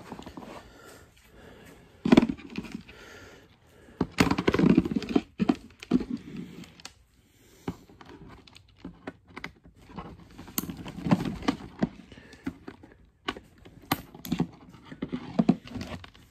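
Hard plastic kit parts and packaging being handled and snipped free: irregular clicks, snaps and crinkling, in short bursts.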